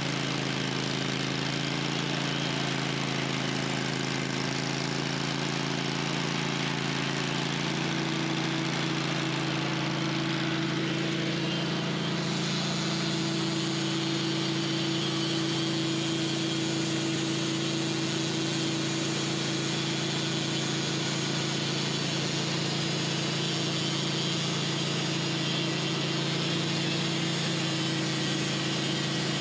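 Wood-Mizer portable band sawmill running steadily, its engine holding an even hum while the band blade saws through a honey locust log. The tone shifts slightly about eight seconds in.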